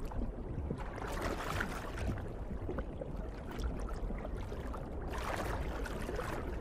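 Underwater water ambience: a steady rushing wash that swells about a second in and again about five seconds in.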